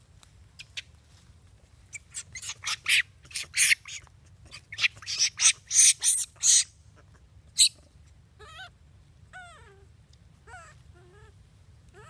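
Long-tailed macaques screaming as they scuffle: a rapid run of harsh, shrill screams from about two seconds in until past six seconds, with one more a second later. Then a few softer, wavering calls that fall in pitch.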